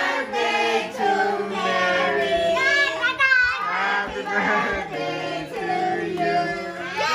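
A group of children and adults singing together, with long held notes.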